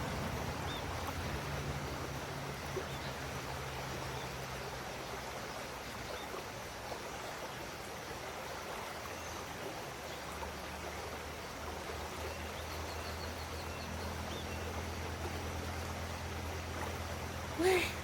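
Steady outdoor background noise with a low hum under it and a few faint high chirps in the second half; a short, louder voice-like sound comes near the end.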